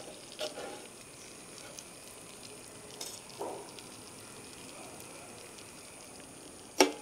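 Jalebis deep-frying in hot oil in a flat jalebi pan, a soft steady sizzle as the frothing settles, the sign they are nearly done. A perforated steel skimmer clinks lightly against the pan a few times, with one sharp clink near the end.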